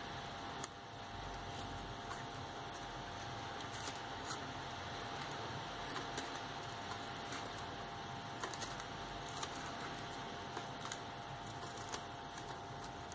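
Steady room hum with a faint whine, with sparse faint crackles and clicks of floral tape being wound around a wire stem.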